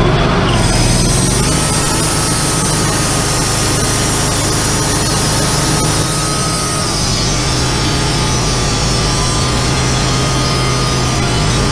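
Wood-Mizer-type portable band sawmill with a Kohler gas engine: within the first second the engine comes up from idle and a steady high whine and hiss come in as the band blade cuts into a yellow poplar log. It then runs steadily under load.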